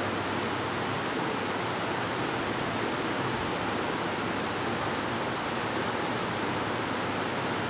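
Steady, even background hiss with no changes, from room noise or the recording itself.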